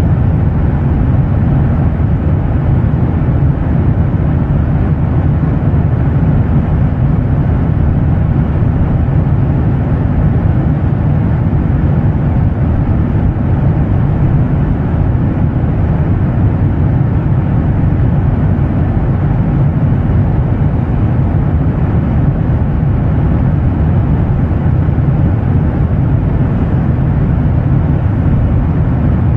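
Jet airliner engine noise: a steady, deep, unchanging drone of even noise, heaviest in the low end with a softer hiss above.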